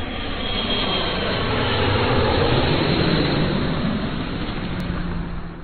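Jet airplane passing overhead: a steady rushing noise that swells to its loudest midway and fades away near the end.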